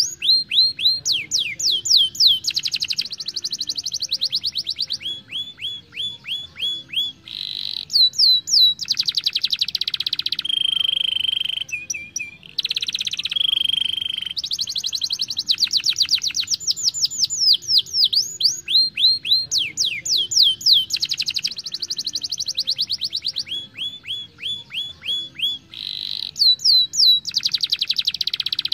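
A young domestic canary singing a long, fast song. It is built of rolls and trills: runs of rapid high notes sweeping downward, buzzy dense rolls and short repeated notes, phrase after phrase with only brief pauses.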